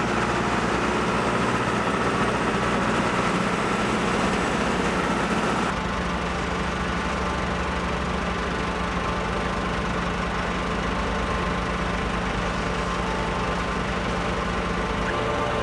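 Tractor engine running steadily while powering a vertical-auger feed mixer wagon. The sound changes abruptly about six seconds in, turning slightly quieter and duller.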